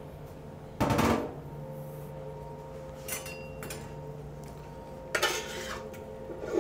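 Pork ribs going into a stainless steel pot: a short loud clatter about a second in, then fainter clinks and scrapes of a utensil against the pot around three seconds and again near the end.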